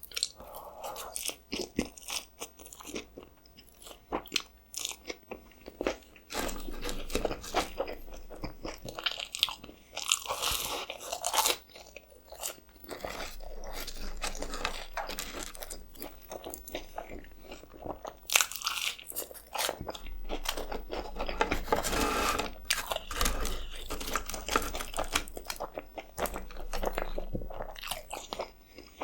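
Close-miked eating of fast food: bites, crunching and chewing, with many sharp crunches and clicks throughout.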